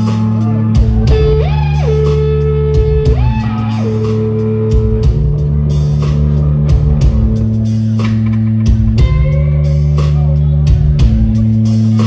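Rock band playing an instrumental passage: electric guitar lead with notes bent up and down over a sustained bass line and drums.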